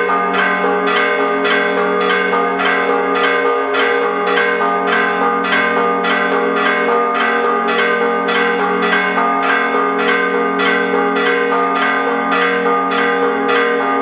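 Church bells ringing in rapid, steady strokes, about two a second, each strike landing on the still-sounding hum of the bells before it.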